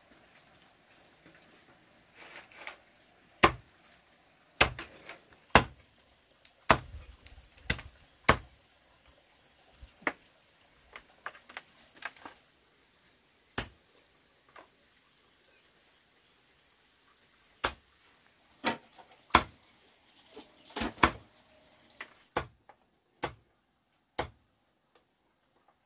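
Knife chopping on a wooden cutting board in single, irregular strokes, sometimes a second or more apart and sometimes in quick pairs, with a gap of several seconds in the middle.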